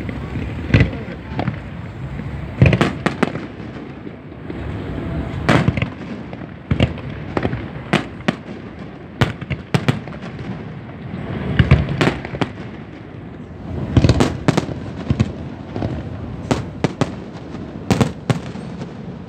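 Aerial firework shells bursting: a long run of sharp bangs at irregular intervals, some coming in quick clusters of two or three.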